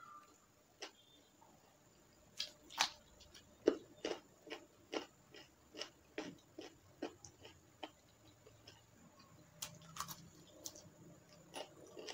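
Close-up chewing of chicken curry and rice: a run of sharp, wet mouth smacks and clicks, about one or two a second, pausing briefly in the middle.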